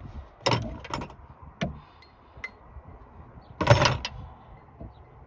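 Metal hand tools clinking and knocking against metal in a few separate clanks, with a louder, longer clank about two-thirds of the way through.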